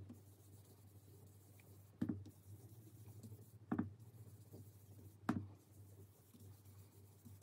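Round ink blending brush swept over cardstock in stippled strokes: faint brushing with three soft taps about a second and a half apart as the brush comes down on the paper. A low steady hum runs underneath.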